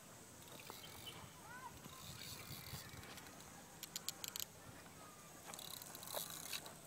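A spinning fishing reel gives a quick run of about half a dozen sharp clicks about four seconds in. Under it is quiet riverside background with a few faint chirps early on.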